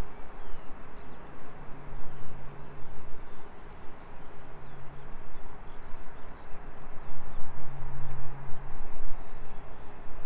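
Outdoor airfield ambience: a low, steady engine hum that fades in and out several times over a rumbling noise that rises and falls, with a few faint bird chirps.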